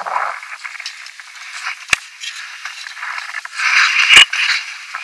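Snow shovels scraping and digging in packed snow, with a sharp knock about two seconds in and another, louder one about four seconds in.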